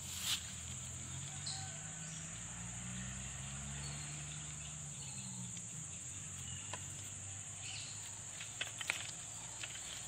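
Insects chirring, a steady high-pitched drone, with a few short clicks: one just after the start and a small cluster near the end.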